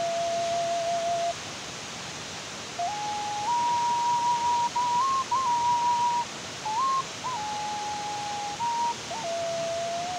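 A slow whistled melody of held notes in a single pure tone, rising from a low note to higher ones and coming back down to the low note near the end, sliding into some notes, over a steady hiss.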